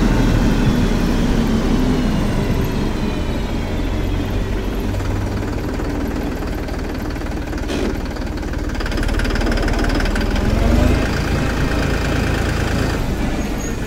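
Force Sanman 6000 tractor's three-cylinder turbocharged diesel engine running as the tractor drives along, its note dropping slowly over the first few seconds.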